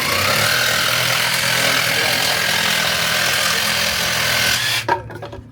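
Electric power saw cutting through wood, a loud, steady run with a slight rise in pitch about a second in, cutting off near the end with a sharp click and a few light knocks.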